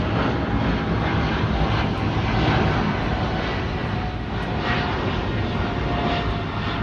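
Jet engines of a Boeing 777-200ER airliner running, a steady loud engine noise with a faint thin tone that slowly falls in pitch.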